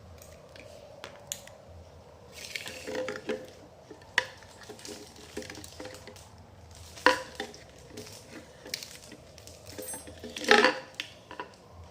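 Handling noise from small hard objects: scattered clicks, taps and short rustles, with a sharp clack about seven seconds in and a louder scraping rustle about ten and a half seconds in. No horn sounds.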